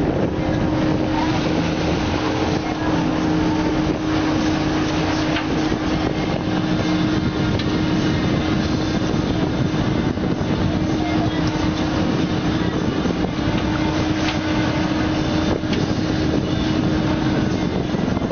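Fishing boat's engine running steadily with a constant hum, over wind and water noise.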